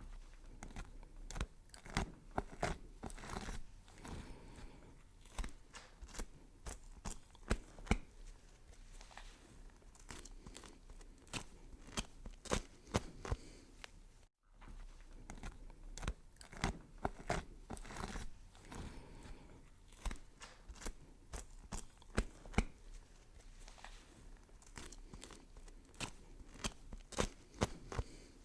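Vegetables being chopped: a run of irregular sharp chops with a crunching edge, broken by a brief silent gap about halfway through.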